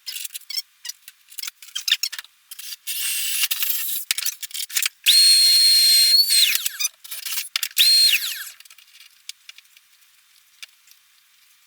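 Small handheld power tool motor whining in two runs, a longer one then a short burst, its pitch dropping as it stops, with scattered clicks and rattles of handling around it.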